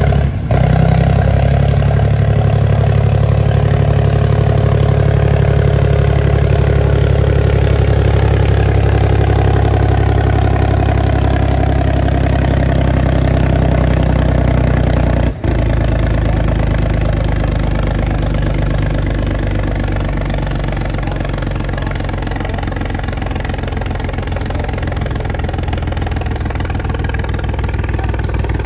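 Vintage tractor engine running steadily, its note sinking slowly about a third of the way in. The sound drops out for an instant twice.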